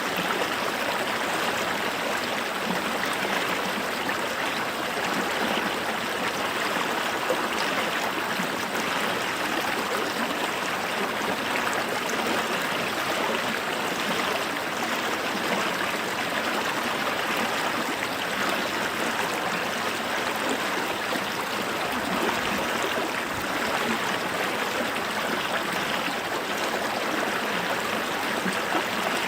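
Shallow creek flowing steadily over stones, a continuous rushing and trickling of water.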